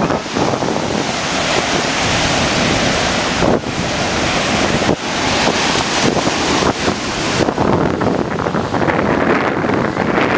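Ocean surf breaking and washing through the shallows, a dense rushing hiss, with wind buffeting the microphone. The upper hiss thins out in the last few seconds.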